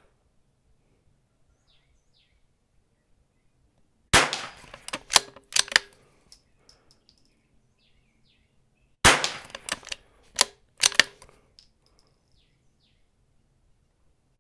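Two .22 LR rimfire rifle shots about five seconds apart, each a sharp crack followed by a quick run of metallic clicks as the bolt is worked for the next round.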